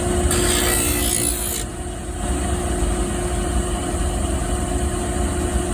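Skate-sharpening machine's grinding wheel spinning with a steady hum; shortly after the start a hockey skate blade is drawn across the stone for about a second and a half, a bright grinding hiss, as the blade is ground flat.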